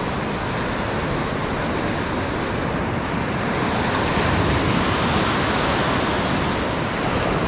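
Ocean surf breaking and foam washing through shallow water, growing a little louder about four seconds in as a wave breaks close by.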